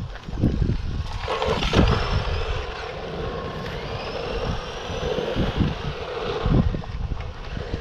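Brushed 550 electric motor and gears of a 1/12-scale RC truck whining as it drives, the pitch rising several times as it speeds up. Wind rumbles on the microphone underneath.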